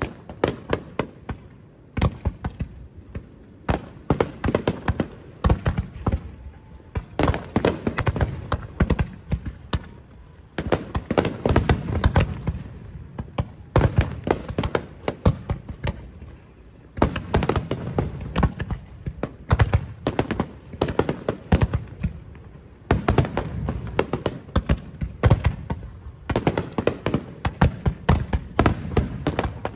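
Fireworks display: rapid volleys of sharp bangs and crackles, many a second, coming in clusters a few seconds long with brief lulls between.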